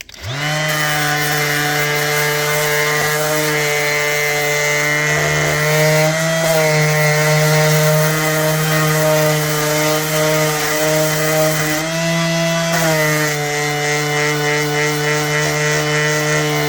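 Electric orbital sander with a 120-grit disc running steadily, sanding the metal front plate of an old door lock. It switches on at the start with a steady motor hum, and the pitch wavers slightly a couple of times.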